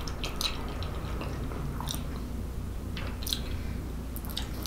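A person chewing a mouthful of pull-apart cheese bread, with a few soft, irregular mouth clicks.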